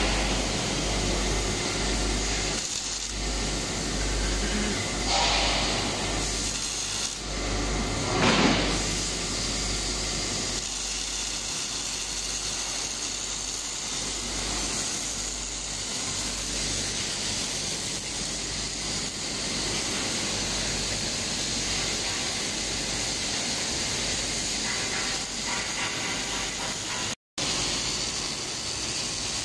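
Automatic pipe-and-flange welding machine's welding arc hissing and crackling steadily as a flange is welded onto a pipe, over a steady low hum.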